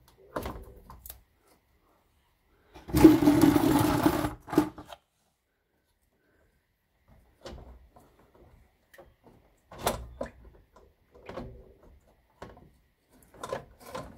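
Ford Mondeo Mk3 ST220's radiator being worked down out of its mountings by hand. A loud scraping rasp comes about three seconds in, then a run of short knocks and scrapes as it shifts against the surrounding parts.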